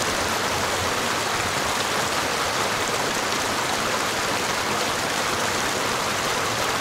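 Small mountain creek cascading over rocks: a steady rush of splashing water.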